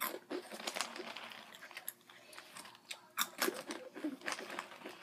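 A plastic Hot Cheetos bag crinkling as a hand rummages in it, in two spells of crackling rustle, the second about three seconds in.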